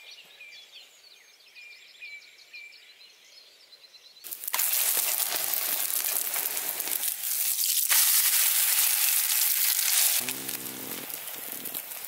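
Pancake batter frying in a skillet over a campfire, sizzling loudly. The sizzling starts suddenly about four seconds in, after a few seconds of faint high chirps.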